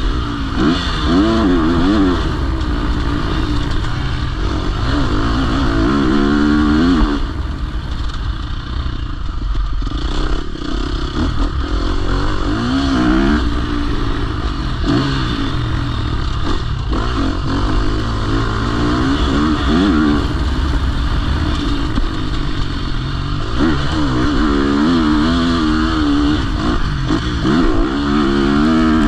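A KTM SX-F four-stroke motocross bike's engine revving up and dropping back again and again as it is accelerated through the gears and rolled off for turns, heard close up from on the bike. The throttle eases off for a few seconds about seven seconds in, then the revving picks up again.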